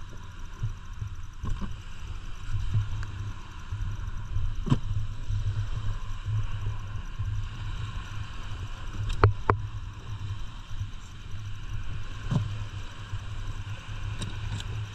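Wind buffeting the microphone on an open boat: an uneven low rumble, with a few sharp knocks around five, nine and twelve seconds in, the loudest a quick pair about nine seconds in.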